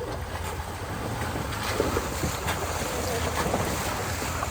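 Off-road vehicle's engine running low and steady as it crawls over rocks, with wind buffeting the microphone and a few short knocks.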